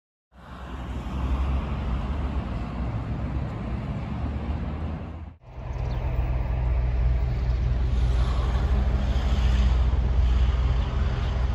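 Steady low motor drone under a broad rushing outdoor noise. It breaks off for an instant about five seconds in and resumes.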